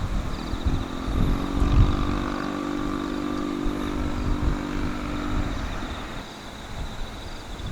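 A motor vehicle passes, its engine note steady for about five seconds and then fading, with wind buffeting the microphone.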